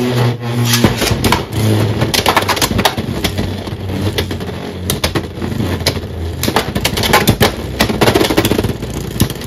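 Two Beyblade X spinning tops, an MQ Dranzer S and a Nightshield, whirring in a clear plastic stadium. They give repeated sharp clacks and rattles as they collide and strike the stadium wall.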